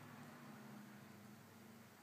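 Near silence: room tone, a faint hiss with a faint low hum that fades near the end.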